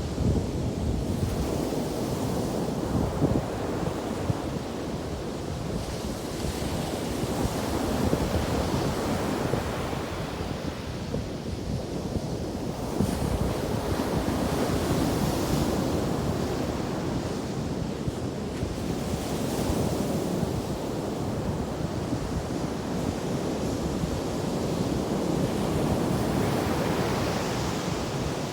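Ocean surf breaking on a beach after a storm, a continuous wash that swells and ebbs every few seconds as waves come in.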